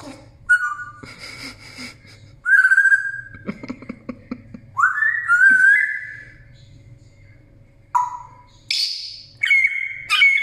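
African grey parrot whistling and calling: a held whistle, then a rising whistle, then several shorter calls near the end. A run of quick clicks comes about three and a half seconds in.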